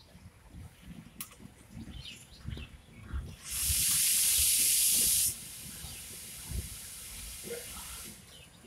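Compressed air hissing out of an Indian Railways coach's air brake system: a loud, steady hiss of about two seconds beginning a little over three seconds in, then dropping sharply to a quieter hiss that runs on for about three seconds more and stops. Faint low rumbling of the slowly moving coaches lies underneath.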